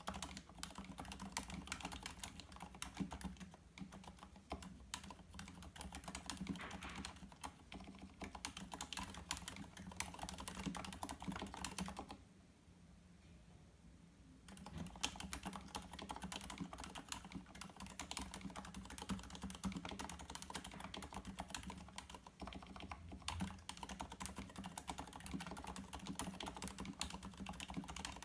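Fast typing on a Varmilo VA87Mac tenkeyless mechanical keyboard with Cherry MX Silent Red switches: rapid, damped key clicks and thocks, with a pause of about two seconds near the middle.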